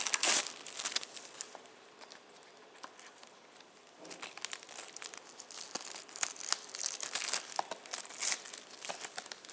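Plastic shrink-wrap on a Blu-ray case being torn open and crinkled by hand. There is a loud burst of crackling in the first second, then quieter scattered crinkles, then dense crinkling from about four seconds in.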